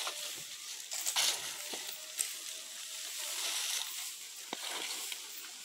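A hoe scraping over dry dirt and scooping weeds and dead leaves into a wheelbarrow: repeated gritty scrapes and rustles, with a few short sharp knocks.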